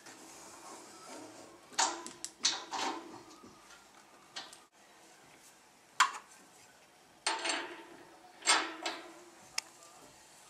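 Brass fittings clinking and knocking against a steel panel radiator as they are handled and screwed into its ports by hand. There are several short, sharp clatters at irregular intervals.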